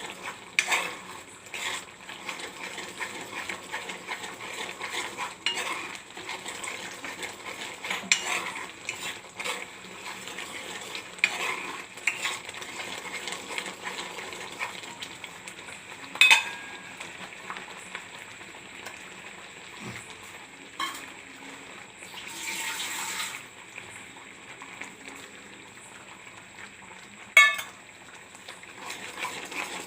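A spoon stirring and scraping a thick, boiling mixture of sugar syrup, ginger paste and rice flour in a pan, with scattered clinks against the pan over a soft bubbling hiss. Two sharp clinks stand out, about halfway through and near the end.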